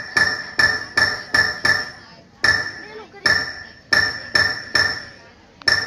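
A metal object struck repeatedly, about eleven blows in an uneven rhythm, each ringing with the same clear high tones as it fades.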